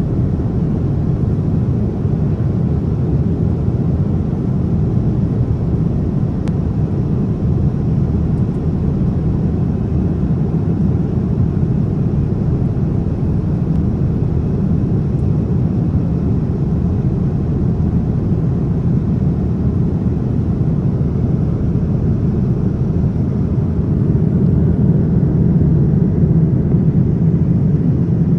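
Steady cabin noise of a Boeing 787-9 airliner in flight: the low, even rumble of airflow and engines heard from inside the passenger cabin.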